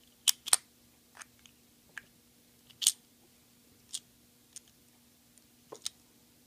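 Sharp little metal clicks and scrapes, about nine of them at irregular intervals, as a thin blade pries the snap-on glass display case back off a skeleton mechanical watch until it comes loose. The loudest clicks come in the first second and about three seconds in.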